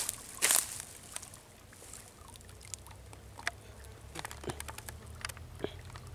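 A short splash about half a second in, then water dripping and sloshing with scattered small plips and ticks as a cast net is drawn in by its rope through a pond.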